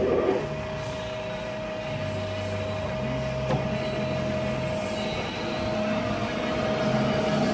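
Jones & Shipman 1300 universal cylindrical grinder running: a steady motor hum with a constant high tone over it, a short burst of noise at the start and a single click about three and a half seconds in.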